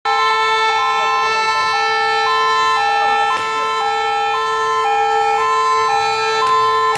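Fire engine sirens sounding a two-tone high-low wail that switches pitch about twice a second, over a steady held tone.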